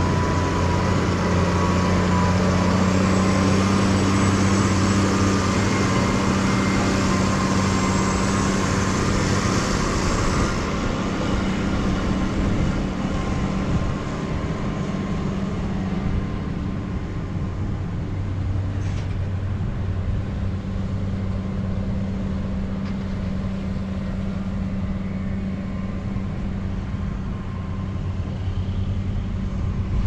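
Steady, unchanging motor drone with a constant low hum, under a hiss that thins out about ten seconds in.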